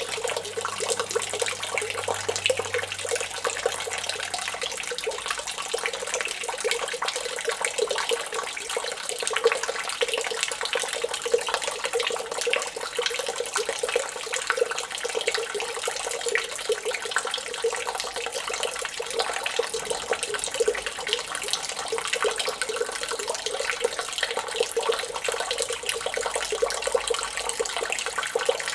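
Kelkay Sitting Frog Sand Spitter fountain running: a thin stream of water spouting from the frog's mouth and splashing steadily into the water below.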